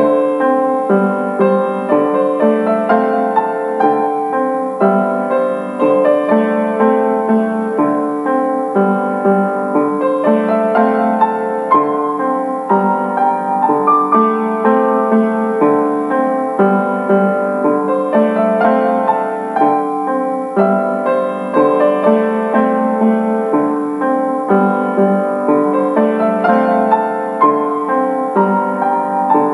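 Background piano music, a steady run of notes played continuously.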